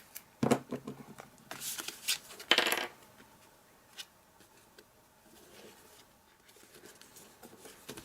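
Cardstock being handled and pressed together: a knock, then a few short scraping rustles of paper sliding against paper, and a single click about four seconds in, with faint handling after.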